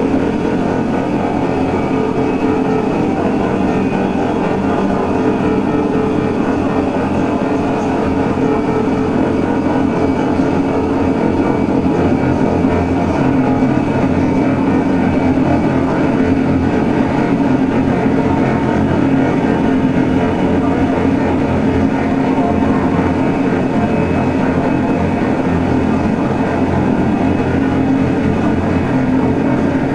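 Live electronic drone noise music: a loud, steady wall of low droning noise with a few sustained tones held inside it and no beat.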